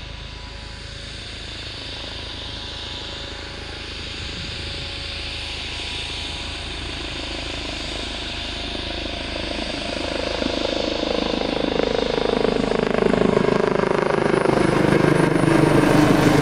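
Eurocopter AS365 N3 Dauphin II twin-turboshaft helicopter approaching, its rotor and turbine noise growing steadily louder. A whine drops in pitch over the last few seconds as it comes close.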